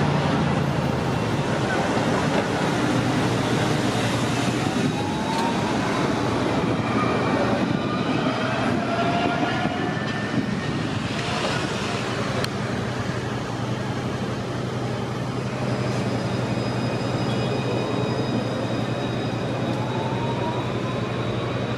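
Alstom Citadis 402 trams running past, a steady rumble with a low hum, and the electric traction drive's whine gliding up and down in pitch several times as the trams pull away and come in.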